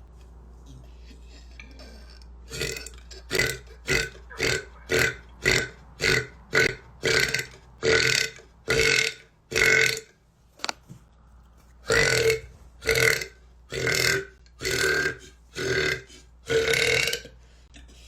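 A woman burping over and over: a quick run of about a dozen short burps, then after a brief pause a slower run of six longer ones.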